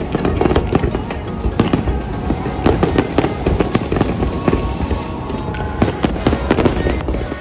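New Year fireworks display going off: rapid, overlapping bangs and crackles, with music playing alongside.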